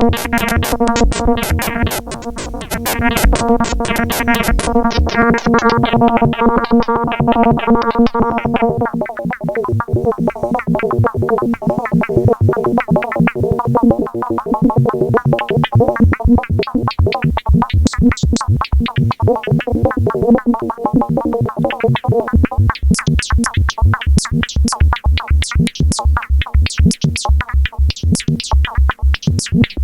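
Electronic music from a modular synthesizer patch. A sustained drone chord fades out over the first several seconds under a fast run of short plucked pulses. From about two-thirds of the way in, a low kick-drum-like beat and high clicks join the pulses.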